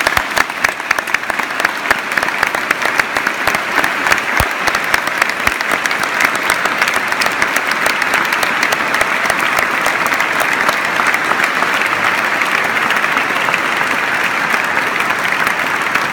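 A large crowd applauding in a church. It starts with distinct separate claps and builds within a few seconds into dense, sustained applause.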